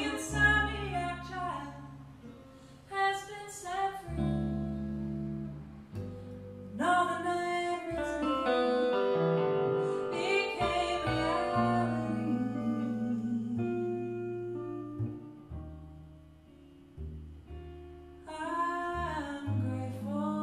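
Live jazz trio: a woman singing in phrases with short pauses, over plucked upright double bass and electric guitar chords.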